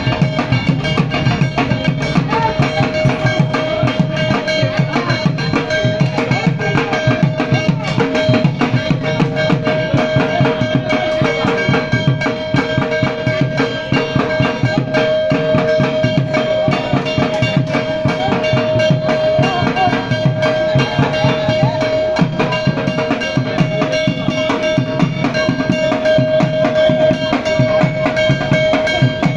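Drum-led music: fast, continuous drumming with a steady ringing tone held over it.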